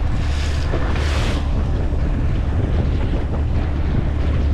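Strong wind buffeting the microphone over the steady rush of rough sea water along a wooden boat's hull, with a brief burst of hissing water in the first second or so.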